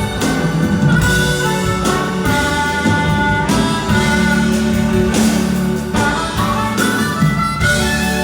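Instrumental music: a melody of held notes over a steady bass accompaniment.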